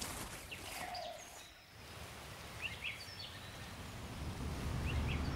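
Quiet outdoor ambience with a few short bird chirps about three seconds in, and a low rumble that builds near the end.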